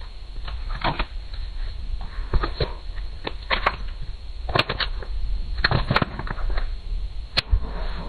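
Construction site noise: irregular knocks and clatters of hard material over a steady low rumble.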